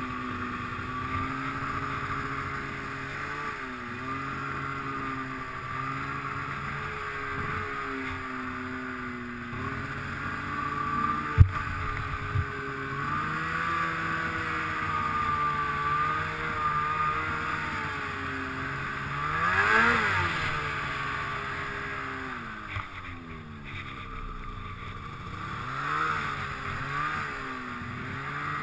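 Snowmobile's two-stroke engine, fitted with an 880 big bore kit and being broken in, running under load with the revs rising and falling. A sharp rev up and back down comes about two-thirds of the way through, and a brief knock comes a little before the middle.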